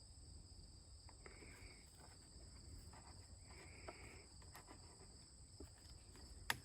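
Near silence outdoors: insects trilling steadily, with a short buzzy call repeating every two to three seconds, and one sharp click near the end.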